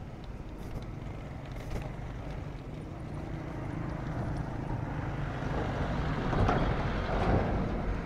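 Road traffic on a dirt road: low engine rumble of motorcycles going by, growing louder in the second half as vehicles pass close, loudest about six to seven seconds in.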